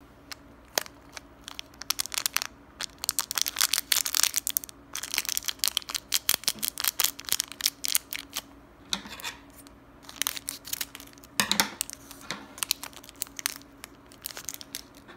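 Clear plastic candy wrapper crinkling and crackling as fingers twist and tear it open to free a gummy, in irregular bursts of sharp crackles with a few short pauses.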